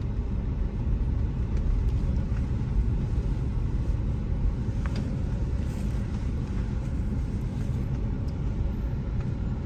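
Car driving along a road, heard from inside the cabin: a steady low rumble of engine and tyre noise, with a few faint ticks.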